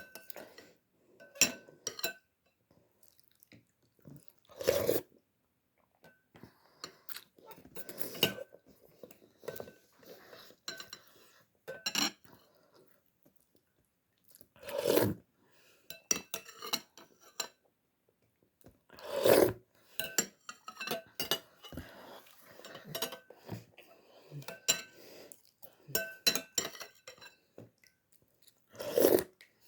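Someone eating instant vermicelli noodles: a utensil clinking and scraping against a bowl again and again, with chewing in between. Four louder half-second sounds stand out among the clinks, the loudest near the middle.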